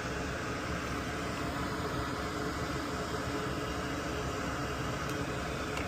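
A small electric fan or blower runs steadily with an even whir and a faint hum underneath.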